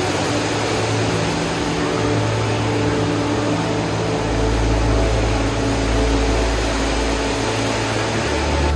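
Steady rush of a heavy column of water falling two storeys from the Rain Oculus whirlpool's bowl and splashing into the pool below.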